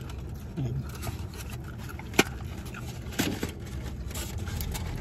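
Clear plastic clamshell food container being handled: one sharp click about two seconds in, then bursts of crinkling clicks a little after three seconds and again after four. Underneath is a steady low rumble of the car cabin.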